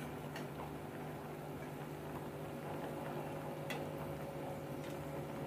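Mustard oil being poured from a small steel bowl into a large empty metal cooking pot: a quiet pour with a few faint metallic ticks, over a steady low hum.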